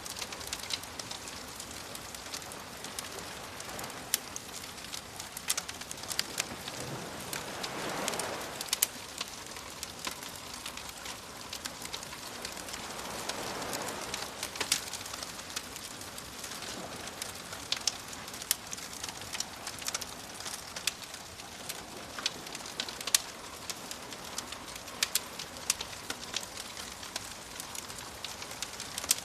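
Campfire crackling with frequent sharp pops over soft ocean waves washing in, the waves swelling about eight seconds in and again around fourteen seconds.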